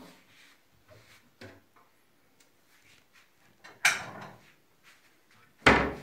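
Kitchenware being handled on a counter: a few faint taps, a sharp clatter about four seconds in and a louder knock near the end.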